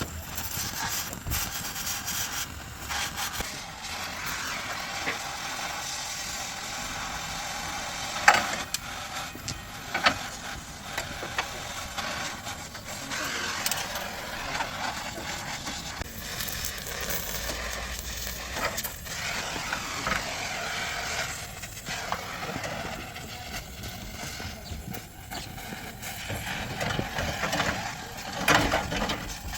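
Car body repair work: a steady noisy background with scattered clicks and a few sharp knocks, the loudest about eight seconds in and again near the end.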